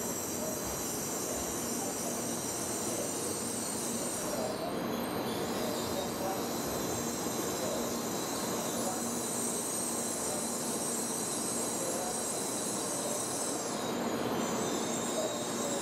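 N700-series Shinkansen bullet train pulling slowly into the platform and coming to a stop. It makes a steady rush of rolling noise with thin high-pitched whines over it.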